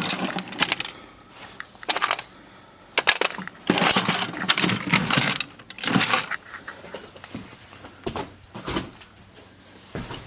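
Small metal sewing-machine parts clinking and rattling as they are handled, in irregular bursts of sharp clicks with short pauses between.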